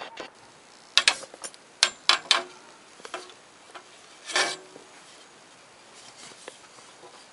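Hand work on a metal antenna mount: a quick run of sharp clicks and knocks, then a short scrape about four seconds in, with a few faint ticks after.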